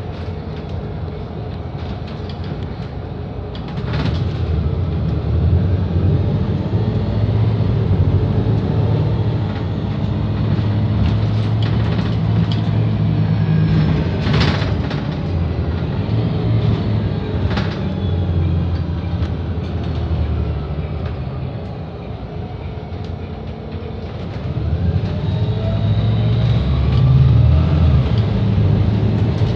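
Volvo B7RLE bus's six-cylinder diesel engine and drivetrain heard from inside the passenger cabin on the move, the engine pulling harder about four seconds in and again near the end. A few sharp knocks break through, the loudest about fourteen seconds in.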